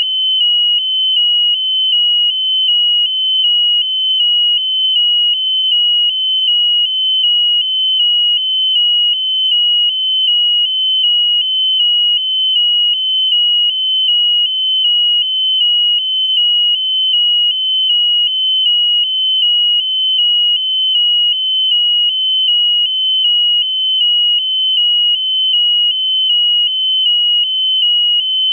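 A piezo buzzer on the balloon payload sounds one high, steady tone, broken by short regular gaps a little under twice a second.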